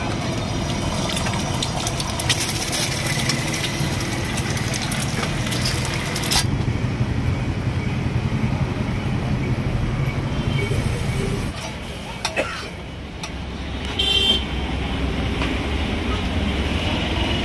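Roadside traffic running steadily, with a vehicle horn honking briefly about fourteen seconds in.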